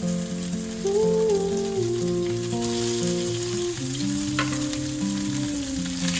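Food frying in a pan, a steady sizzling hiss, under background music with a long held note.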